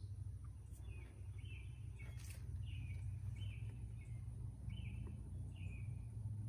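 A bird calling again and again: short, downward-sliding chirps, about seven in a row, over a steady low background rumble.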